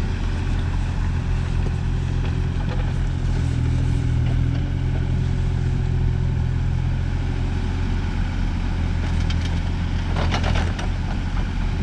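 Tractor engine running steadily, a constant low drone throughout. A short burst of noise about ten seconds in.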